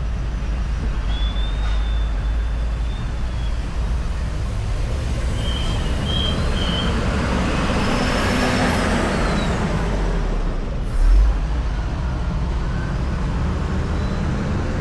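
Steady road traffic of cars and motorbikes on a main road. One vehicle passes louder about eight seconds in, and a short low thump comes about eleven seconds in.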